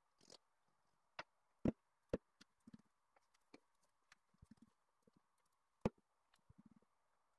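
Sparse wooden knocks and soft taps of a long thin wooden rolling pin (oklava) against a wooden worktable as thin baklava dough sheets are rolled onto it and handled, four sharper knocks standing out among the quieter taps, over a faint steady hum.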